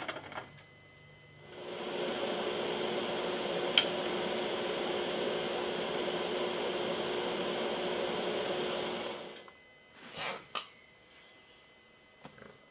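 A small electric motor runs steadily for about seven seconds, spinning up and winding down. A few short metal knocks come before and after it.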